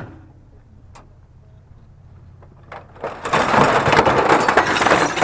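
A quiet stretch with two faint clicks, then about two seconds of loud scraping, rustling handling noise.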